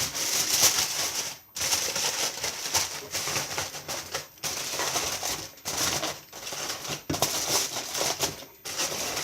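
Aluminium foil crinkling as it is pressed and sealed tightly around a turkey on a tray: a run of rustling broken by several short pauses.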